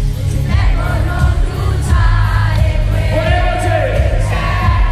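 Live pop song over a concert PA: a sung vocal melody over a heavy bass line.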